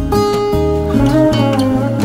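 Background music led by acoustic guitar, plucked and strummed chords.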